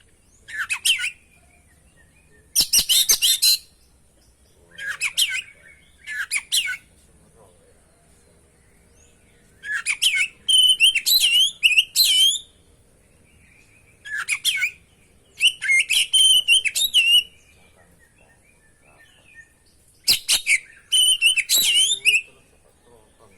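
Oriental magpie-robin (kacer) singing: about eight short, loud phrases of rapid varied whistles and scratchy notes, a few seconds apart, with a faint steady high tone underneath.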